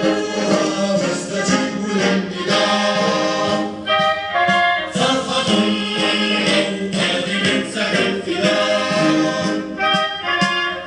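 A group of voices singing together in chorus, a steady sung chant with no break.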